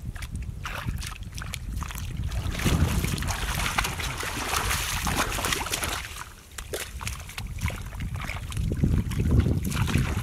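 Shallow muddy water splashing and sloshing as a person wades and gropes in it by hand, loudest a few seconds in and again near the end, over a low wind rumble on the microphone.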